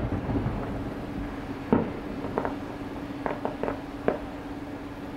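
Distant aerial fireworks: the boom of a shell burst dying away at the start, a sharper bang about a second and a half in, then a scatter of smaller pops over the next two seconds.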